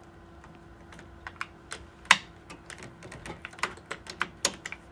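Irregular small plastic clicks and taps as a USB cable plug is worked into the USB port on the back of a Ricoh Ri100 printer, the sharpest click about two seconds in. A faint steady hum runs underneath.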